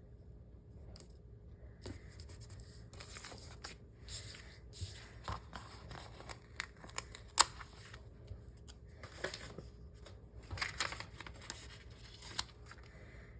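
Paper sticker sheets being handled: rustling, stickers peeling off and small clicks, with one sharp click about seven seconds in.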